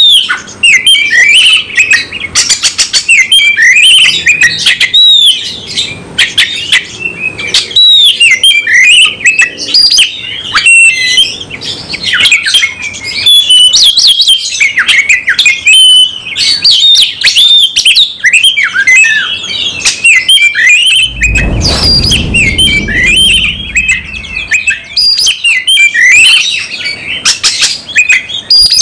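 Oriental magpie-robin (kacer) singing hard in its aggressive fighting-mode song: a fast, varied run of whistles, chirps and harsh notes broken by short pauses. A low rumble lasts a few seconds about three-quarters of the way through.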